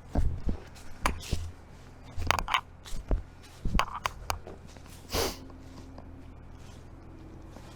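Footsteps crunching on loose, debris-strewn ground, uneven steps over the first few seconds, with a louder scuff about five seconds in before it goes quieter.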